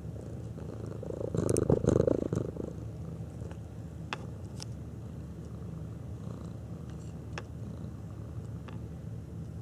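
Tabby cat purring steadily close to the microphone, with a louder stretch of noise between about one and two and a half seconds in and a few scattered sharp clicks.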